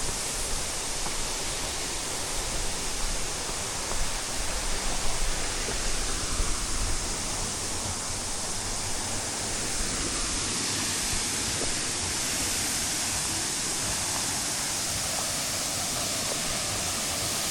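Waterfall cascading steadily: an even rushing of falling water.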